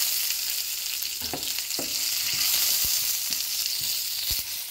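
Chopped garlic, ginger and pandan leaf sizzling in hot oil in a nonstick frying pan. A wooden spatula stirs them, with a few knocks and scrapes against the pan.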